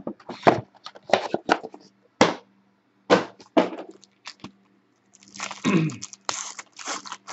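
Cardboard packaging and a plastic wrapper handled and unwrapped, a string of irregular crackles and crinkles, with a longer crinkling stretch near the end as a trading-card box topper comes out of its wrapper.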